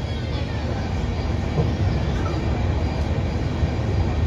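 Steady low rumble of the Delhi–Jaipur Double Decker Express coach running at speed on the rails, heard from inside the air-conditioned chair car.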